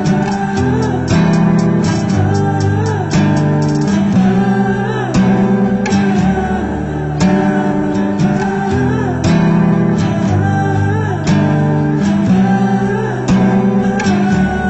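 Acoustic guitar music, strummed with strong strokes about once a second under a wavering melody line.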